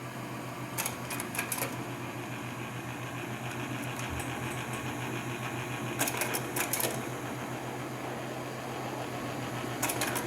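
Quiet lead-in of a recording: a steady low hum under hiss, with short flurries of rapid clicking about a second in, around six seconds and near the end.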